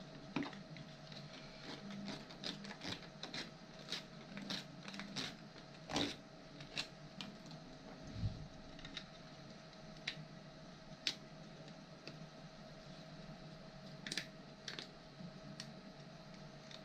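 Hand work on 3D-printed plastic parts: irregular clicks, taps and short scrapes, busiest in the first half, over a faint steady hum.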